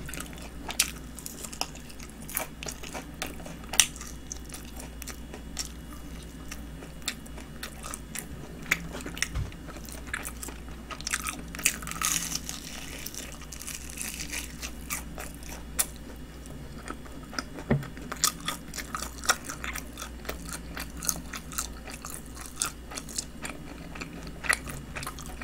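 Biting, crunching and chewing of honey-glazed fried chicken (Kyochon Honey Combo): many small sharp crunches, with a louder bite about halfway through.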